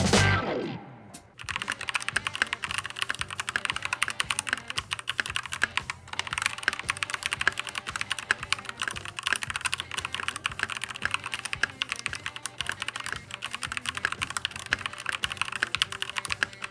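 Keychron K2 mechanical keyboard with linear Gateron G Pro Red switches being typed on quickly, a dense run of key clacks with a brief pause about six seconds in. The tail of background music fades out in the first second.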